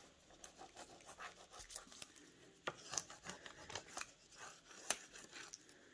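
A hand rubbing over the plastic carrier film of a rub-on furniture transfer, pressing the design onto a painted wood board: faint, scratchy rubbing with a few sharp ticks, the clearest about two and a half seconds and five seconds in.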